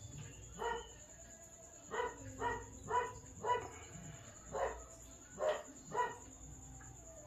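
A dog barking repeatedly in the background, about eight short barks coming in uneven clusters.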